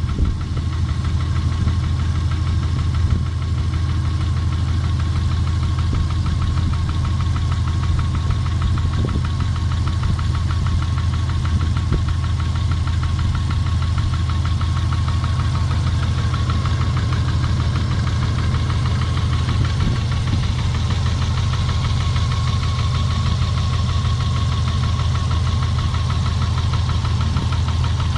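Subaru EJ15 1.5-litre flat-four engine running steadily with a fast, even knock over its hum; the owner puts the knock down to cylinder 4.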